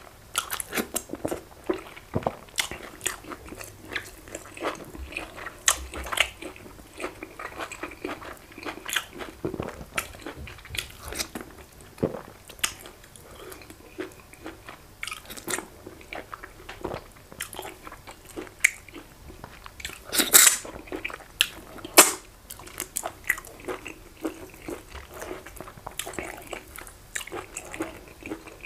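Close-miked sounds of a man eating fufu and efo riro with goat meat: wet chewing and many short sharp lip-smacking clicks, the loudest few about twenty seconds in.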